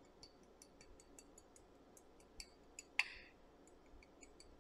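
Faint, rapid high ticks, about five a second, with one sharper click about three seconds in: a metal spoon tapping the hardened caramel crust of a crème brûlée.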